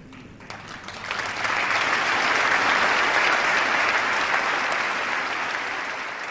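An audience applauding, many people clapping at once: it swells up about a second in and slowly fades near the end.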